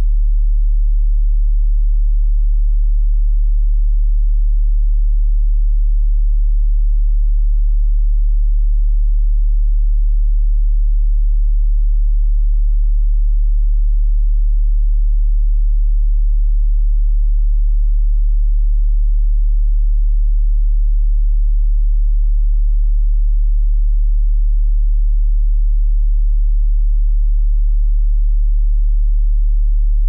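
A steady, unbroken pure sine tone at about 36.7 Hz, the note D1, very deep in pitch.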